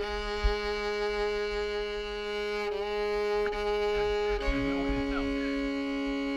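Slow background music of long held string chords, the chord changing about three seconds in and again about four and a half seconds in.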